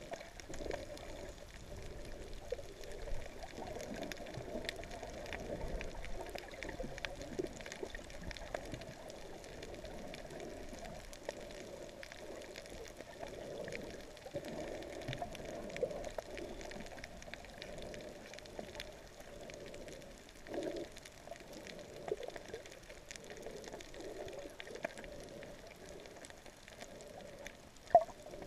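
Humpback whale song heard underwater: long wavering calls in the middle range over a steady wash of water noise with light crackling clicks. A sharp knock sounds near the end.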